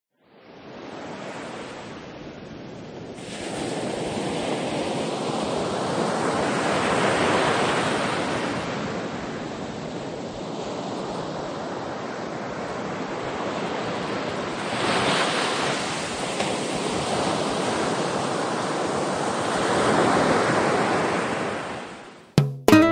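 Ocean surf: a steady rush of breaking waves that swells and ebbs in slow surges several seconds apart, fading in at the start and cutting off near the end, just as salsa music begins.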